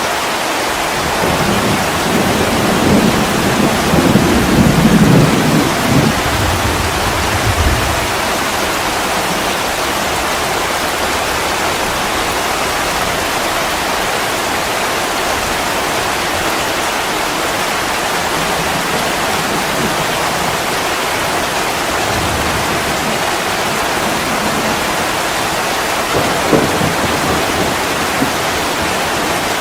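Steady rain with a low rumble of thunder rolling for several seconds early on, peaking about five seconds in, and a short fainter rumble near the end.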